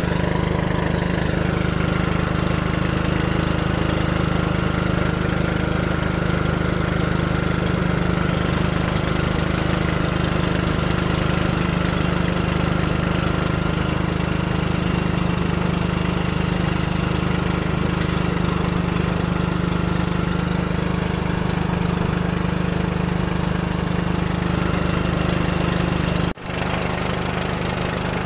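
A small motor boat's engine running steadily at cruising speed, a constant low drone, broken by a momentary drop about two seconds before the end.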